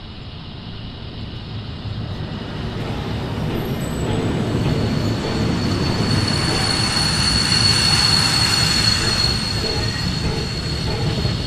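A train approaching and rolling past: a rumble that builds steadily to its loudest about eight seconds in, with a steady high-pitched wheel squeal joining from about four seconds in.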